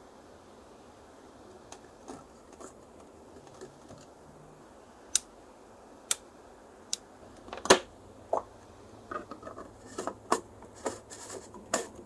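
Handling of a plastic LED bulb and its inline cord switch: a few sharp plastic clicks as the switch is flicked, then a louder knock and a quick run of small plastic clicks and taps as the bulb is handled.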